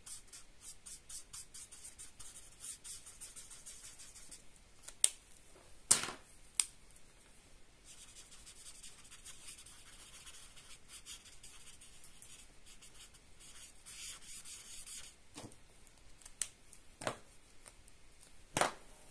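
Marker tip rubbing over paper in quick, short back-and-forth strokes while colouring, in runs with pauses. A few sharp clicks break in, the loudest about six seconds in and another near the end.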